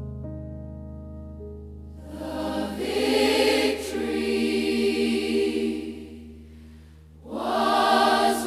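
Gospel worship music: held keyboard chords, then a choir comes in about two seconds in, swells, fades away, and enters again strongly near the end.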